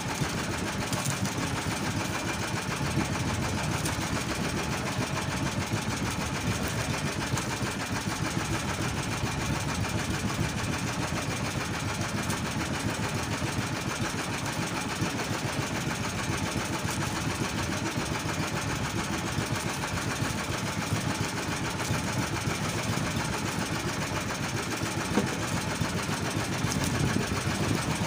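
Small gasoline engine of a fishing boat running steadily, with a fast, even firing beat.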